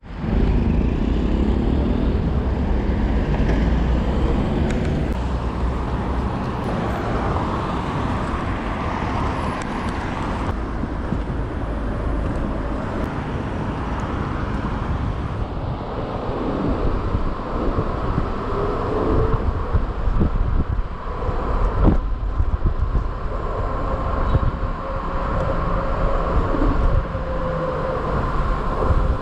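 Riding an electric moped through city traffic: a steady low rumble of wind over the microphone and road noise, with other vehicles passing. A short whine rises in pitch a few times, and there is one sharp click about two-thirds of the way through.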